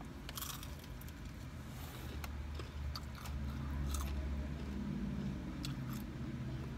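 A person chewing a mouthful of food close to the microphone, with faint crunching clicks. A low hum swells up in the middle and fades again.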